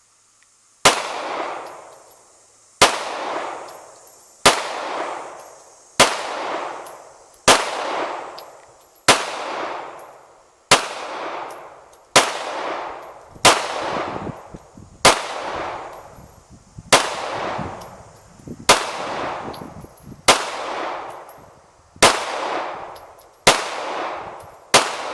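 Gunshots fired one at a time, about one every second and a half, sixteen in all, each trailing off in a long echo.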